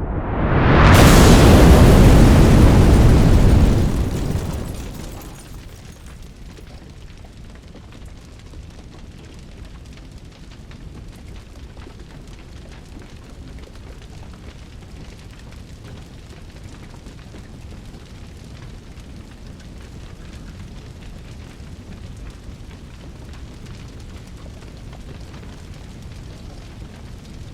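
Fireball explosion sound effect: a rush rising in pitch leads into a loud blast about a second in, which dies away over the next four or five seconds. A steady low rumble of burning flames carries on after it.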